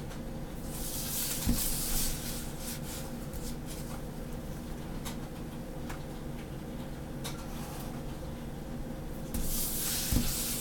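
A pen scratching across paper as lines are ruled along a plastic ruler. Near the end the paper and ruler slide across the table with a couple of light knocks, over a steady low hum.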